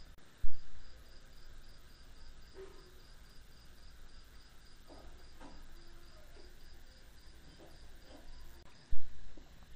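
Insect chirping steadily, a thin high pulse about four times a second, stopping near the end. Two short low thumps, about half a second in and near the end, are the loudest sounds.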